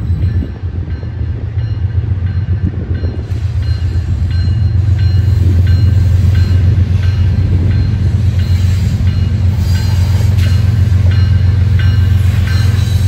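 CSX diesel freight locomotive approaching under power as it pulls away from a start, its engine a steady low rumble that grows louder about four seconds in.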